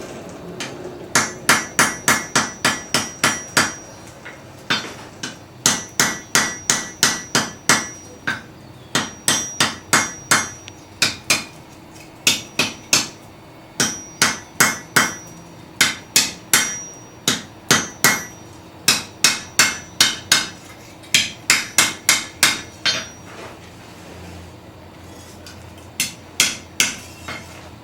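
Blacksmith hammering metal on an anvil in runs of quick blows, about three a second, with short pauses between runs. Each blow has a bright metallic ring.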